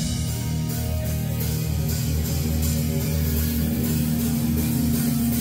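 Rock music with electric guitar, bass and drums playing, with sustained low notes under a steady cymbal beat and no singing.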